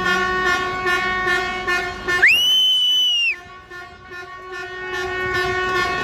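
A horn held in one long, steady tone. A little past two seconds in it gives way to a higher, brighter horn tone that rises and holds for about a second. The sound then drops off, and the steady horn swells back near the end.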